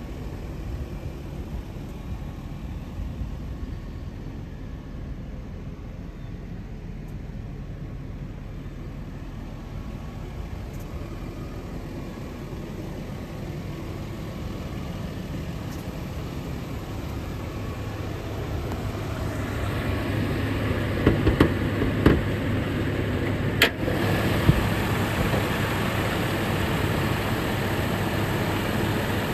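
Nissan Leopard's 3.0-litre twin-cam turbocharged V6 idling steadily. It grows louder about two-thirds of the way through, as it is heard from close over the open engine bay, and a few sharp clicks come soon after.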